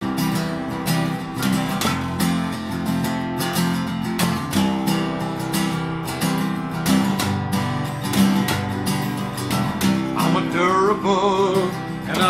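Two acoustic guitars strummed in a country-western song intro, with a voice coming in singing near the end.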